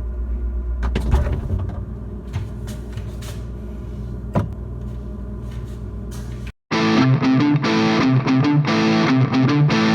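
Intro music: a steady low drone with a few sharp clicks, then after a short break about six and a half seconds in, loud distorted electric-guitar rock.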